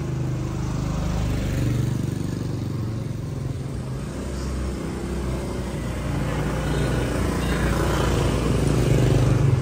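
Motorbike engines and street traffic passing, with one motorbike drawing closer and growing louder near the end.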